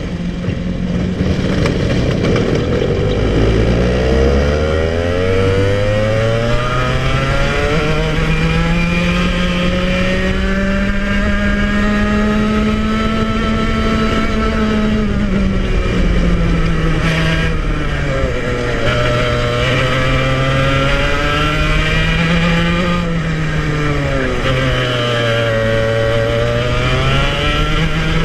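Club100 115cc TKM two-stroke kart engine heard onboard at full race load. The revs sink very low two or three seconds in, then climb steadily for about ten seconds, and afterwards fall and rise again several times under braking and acceleration through the corners.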